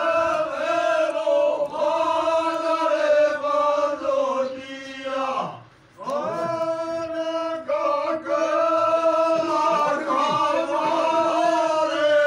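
Men's voices chanting together in a drawn-out, sung devotional chant with long held notes. The chant tails off about five and a half seconds in, pauses briefly and starts up again.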